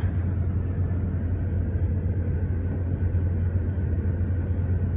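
Steady low rumble, an even drone with faint hiss above it and no sudden sounds.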